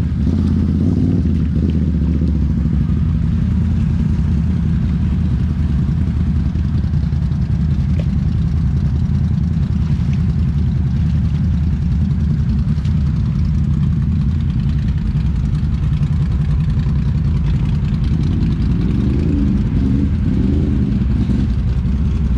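ATV engine running steadily, its revs changing little.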